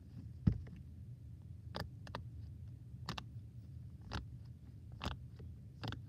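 Hard pop-it fidget toy being pressed, giving a string of separate pops. The loudest comes about half a second in, then the rest follow roughly one a second.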